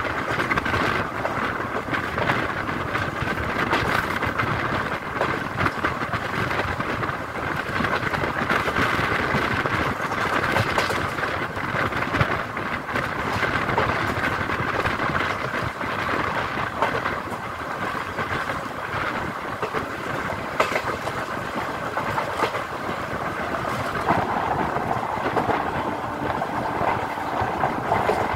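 Pamani Express passenger coach running along the line, heard at an open window: a steady rumble of wheels and rushing air, with sharp clicks of the wheels over rail joints. A steady tone joins in near the end.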